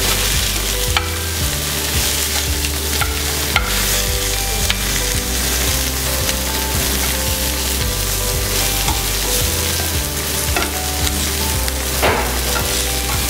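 Lamb shanks and diced onions sizzling as they brown in a hot non-stick frying pan. Metal tongs click and scrape against the pan a few times as the shanks are turned.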